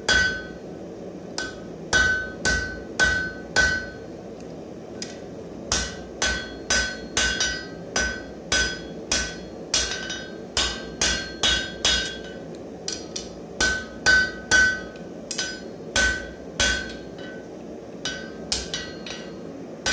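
Rounding hammer striking red-hot steel on the horn of an anvil in a steady rhythm of about two blows a second, each blow with a short metallic ring. The blows stop for about two seconds around four seconds in, then resume.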